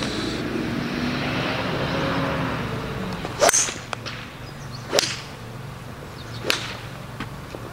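Callaway Epic Flash Star 5-wood striking a golf ball off a range mat: one sharp, loud crack about three and a half seconds in. Two more sharp cracks follow, about a second and a half apart.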